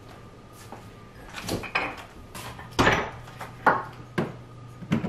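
Kitchen handling noises: about six short knocks and clunks of jars, dishes or cupboard fittings being moved and set down, the loudest two near the middle, over a faint steady low hum.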